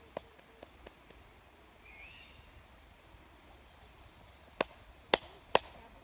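Quiet woodland with a couple of faint bird calls, a short chirp and then a high trill. Near the end come three sharp taps about half a second apart.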